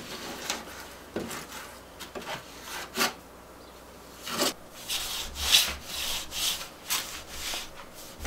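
Small grout float scraping wet grout back and forth across a tile and pressing it into the joints, in separate strokes that come quicker in the second half.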